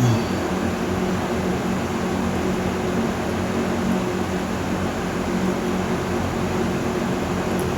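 A fan running steadily: an even hiss with a low, constant hum under it.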